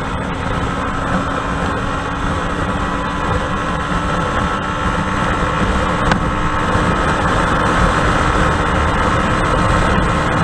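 Honda SP125's single-cylinder four-stroke engine running hard in fourth gear under acceleration, mixed with steady wind rush on the microphone at highway speed near the bike's top speed. The sound grows slightly louder as the speed climbs.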